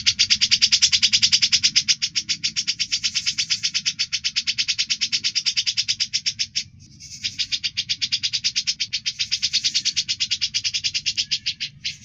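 A songbird's harsh, rapid rasping trill (a 'besetan' call), high-pitched, about ten rasps a second, running on with a brief break a little past halfway. It is played as a masteran, a training recording for cage songbirds.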